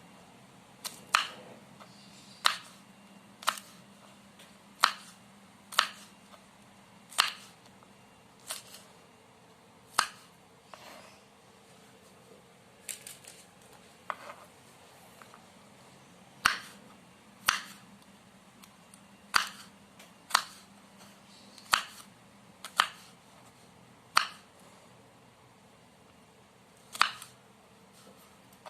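Knife chopping green beans on a cutting board: single sharp knocks about once a second, with a couple of short pauses.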